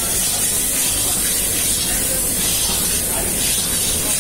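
Wet onion paste sizzling in hot ghee in a steel kadhai as it is stirred: a steady hiss.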